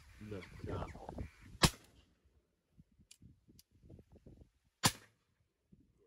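Two shotgun shots about three seconds apart, each a single sharp loud crack, the second slightly quieter. Crows caw in the first second, before the shots.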